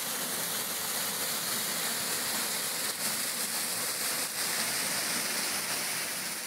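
Small forest waterfall, swollen with heavy rain, pouring into a pool: a steady rushing hiss of falling water.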